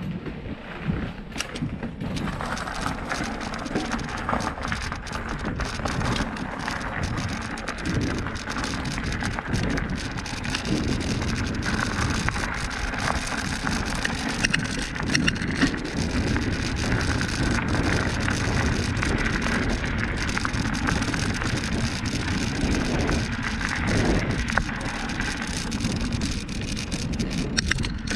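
Bicycle being ridden along a rough dirt trail: tyres rolling over the ground with a continuous rustling noise, and many small clicks and rattles from the bike over bumps.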